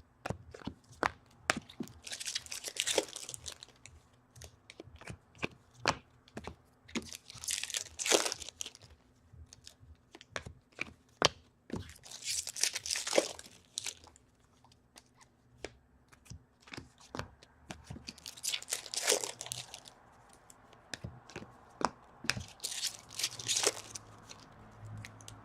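Hockey card pack wrappers being torn open one after another, about five tears roughly five seconds apart. Small crinkles and clicks of handling come between them.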